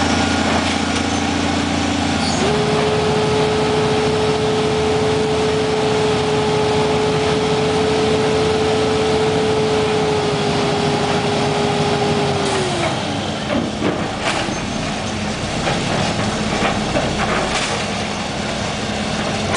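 Roll-off truck's diesel engine revving up about two seconds in and holding a steady raised pitch while it drives the hydraulic hoist tilting the roll-off container up, then dropping back to idle about thirteen seconds in. Scattered knocks and clanks follow over the running engine.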